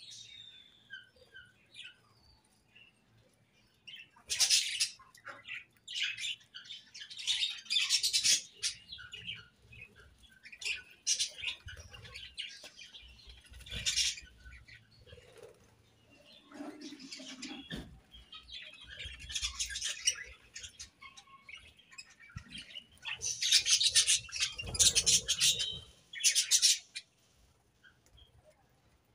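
A flock of budgerigars chattering and chirping in bursts, with quieter gaps between.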